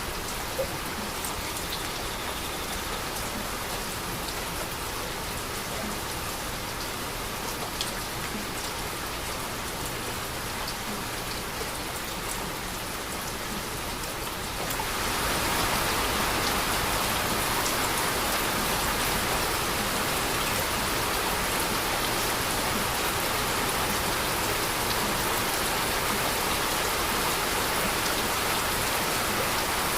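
Heavy rain falling steadily, with scattered drops tapping on a surface. About halfway through it grows louder and fuller and keeps on at that level.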